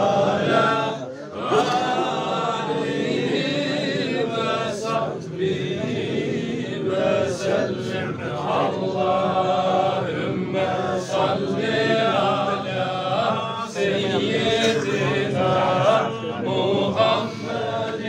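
A group of men's voices chanting together in a continuous devotional chant, with many voices overlapping.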